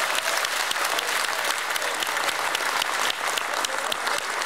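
Applause from a chamber full of parliamentarians: dense, steady clapping from many hands that greets an election result just announced.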